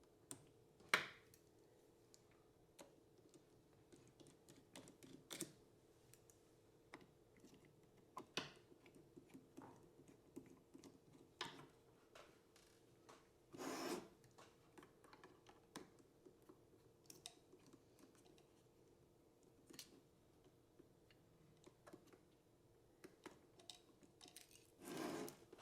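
Faint, scattered clicks and ticks of a small screwdriver and metal parts as the screws holding the front apron of a Canon SLR camera body are undone. There is one sharper click about a second in, and two short rustles, one about halfway through and one near the end.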